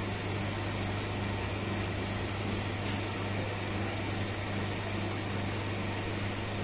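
Steady low hum under an even hiss, with no distinct events.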